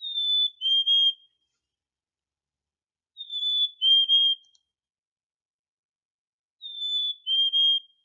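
Black-capped chickadee singing the male's springtime "hi, sweetie" song: three clear whistled phrases about three seconds apart, each a higher note stepping down to a lower one.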